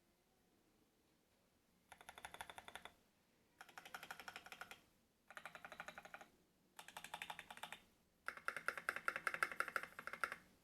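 Typing on a Monstargear XO V3 mechanical keyboard with lubed, filmed Paco switches in a brass plate and SA-profile keycaps. After a quiet start come five runs of fast keystrokes with short pauses between them, the last run the longest and loudest.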